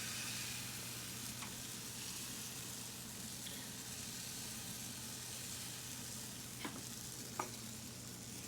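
Pancake batter sizzling on a hot pan: a steady high hiss, with two light clicks about two thirds of the way through.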